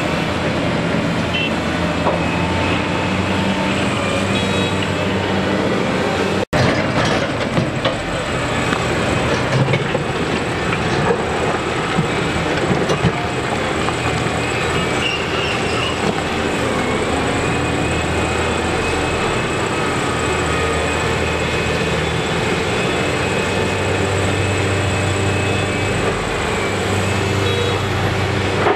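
Liebherr R976 crawler excavator working: its diesel engine runs steadily under load with a high hydraulic whine, while the bucket digs through broken rock and dumps it into a dump truck's steel bed with rattling and clattering of stone.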